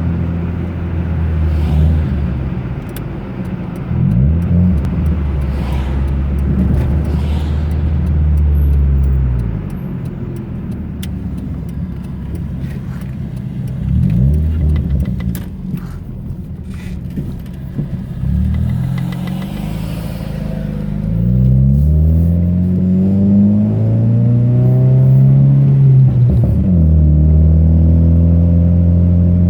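Car engine accelerating and shifting up through the gears several times, its pitch climbing and then dropping back at each shift, then running steadily at higher revs near the end. Scattered clicks and rattles come from the car going over bumps.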